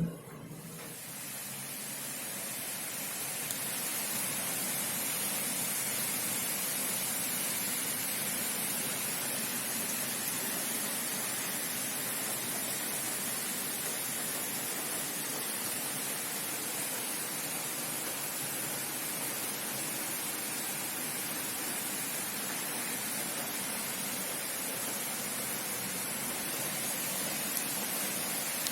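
Heavy thunderstorm rain pouring down, a steady hiss that builds over the first few seconds and then holds level.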